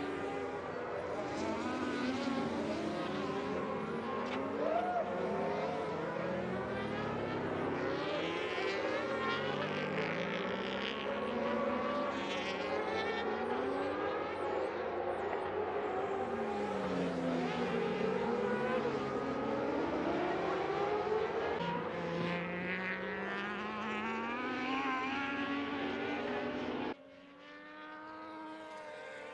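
Several 600-class racing sportbike engines at high revs, their pitch rising and falling through gear changes and as the bikes pass. Near the end the sound drops abruptly to a single, quieter bike.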